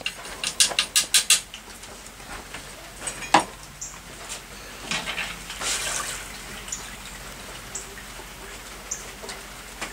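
Light clatter of kitchenware being handled on a table: a quick run of clicks in the first second or so, then a single knock a little after three seconds, with softer scattered ticks after that.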